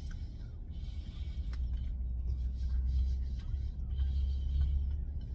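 Eating a bite of fried chicken: a few soft crunches and chewing noises over a steady low rumble.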